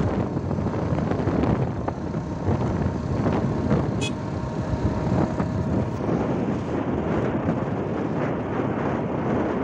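Wind buffeting the microphone of a moving motorcycle, with road and engine noise beneath it. A brief high chirp sounds about four seconds in.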